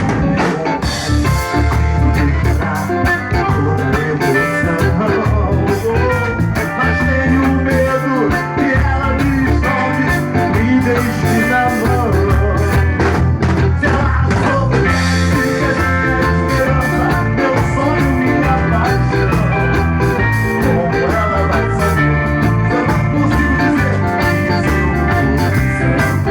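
Band playing an MPB song live: guitar, bass and drums keeping a steady beat.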